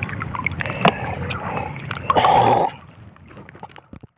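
Sea water sloshing and splashing around people wading chest-deep, with scattered small clicks and splashes. A louder rush of water noise comes about two seconds in and cuts off suddenly, after which it is much quieter.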